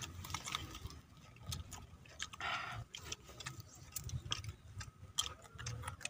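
Crisp, irregular clicks and crunches of raw vegetables being bitten and chewed: small round green eggplants and long beans, close to the microphone, with a short noisier crunch about halfway through.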